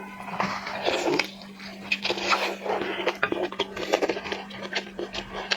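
Tiger prawn being cracked open and peeled by hand: a rapid, irregular series of shell crackles and wet clicks, over a steady low hum.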